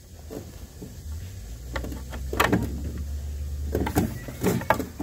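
Sharp metal clicks and scrapes of a screwdriver prying at the forward clutch snap ring in an aluminium transmission case, a few clinks coming close together near the end. A low steady hum runs under them for a couple of seconds in the middle.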